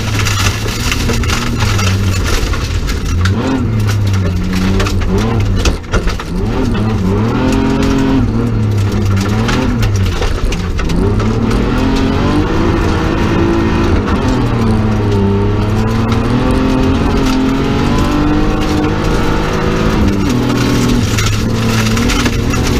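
In-cabin sound of a BMW 325 rally car's straight-six engine at full stage pace, the revs climbing and falling again and again through gear changes and lifts, with a brief drop about six seconds in. Tyres and stones on the gravel make a steady rush underneath.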